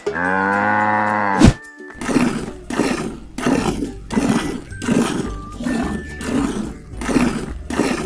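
A cow moos once, a long call of about a second and a half that ends in a sharp knock. Then come regular squirting sounds, a little under two a second: cartoon milking effects of milk jetting into a metal milk can, over faint music.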